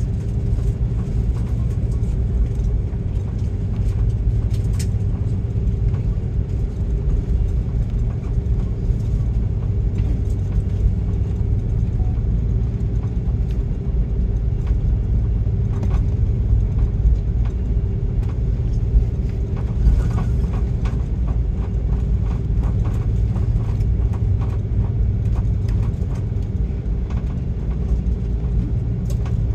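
Cabin noise of an Airbus A330-200 with Rolls-Royce Trent 700 engines, heard from a window seat while the airliner taxis: a steady low rumble with a constant hum, and a few light knocks.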